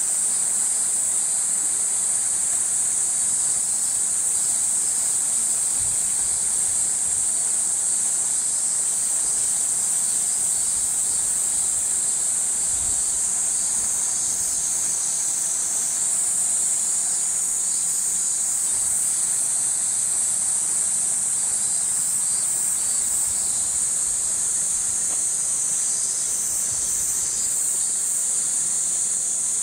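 Cicadas buzzing in a loud, steady, high-pitched chorus, shifting slightly in pitch partway through and again near the end.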